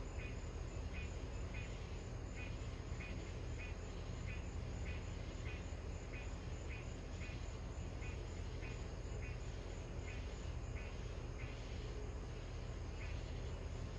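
A night insect chirping steadily, one or two short chirps a second, over a steady low rumble.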